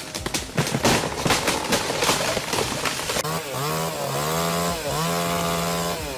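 A run of sharp cracks and knocks, then a two-stroke chainsaw running at high revs. Its pitch dips twice and falls away near the end as the throttle is let off.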